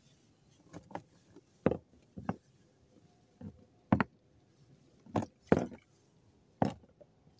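Irregular sharp knocks and taps, roughly one or two a second, from handling a hand line and gear in a small wooden boat.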